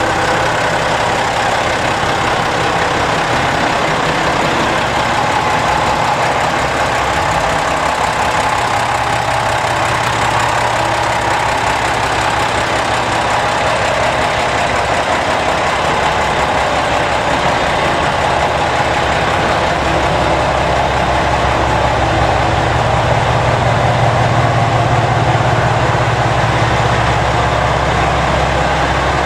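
JR Shikoku 2000-series diesel railcar standing at a platform with its diesel engines idling, a steady mechanical hum. The low engine note grows louder about two-thirds of the way through.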